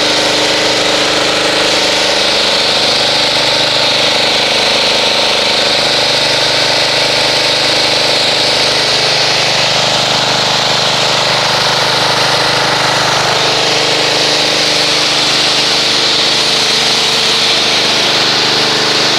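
Pressure washer running steadily, its motor and pump humming under a strong hiss of water spray as it rinses foam off a car's paint.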